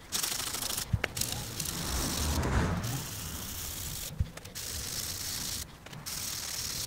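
Fine-grit sandpaper rubbed by hand over a car's painted body panel in back-and-forth strokes, a hissing scrape that comes and goes with short pauses, flatting the orange peel out of the paint. Two light knocks come about a second in and about four seconds in.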